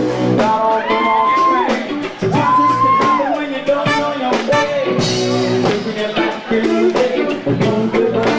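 A band playing live, a full groove throughout. Two long held melody notes stand out about half a second and two and a half seconds in, each sliding down in pitch at its end.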